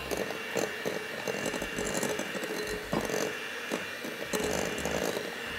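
Electric hand mixer running, its beaters whirring steadily through soft butter and sugar to cream them, with a few clicks along the way.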